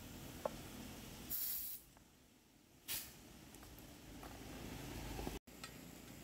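Compressed air hissing from an air-hose chuck on a motorbike inner tube's valve, in two short bursts, the first about half a second long and the second briefer, putting a little air into the tube.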